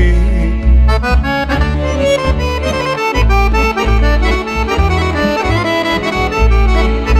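Accordion playing an instrumental break in a Serbian folk (narodna muzika) song, quick runs of short notes over a steady bass and rhythm backing.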